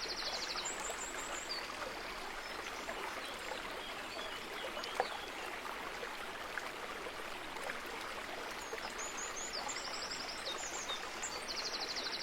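Steady rush of running water, with a small bird singing short trilled phrases near the start and again near the end.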